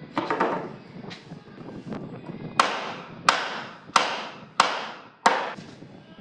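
Five sharp knocks in a steady rhythm, about two-thirds of a second apart, each ringing out briefly, after some softer knocking and scraping near the start.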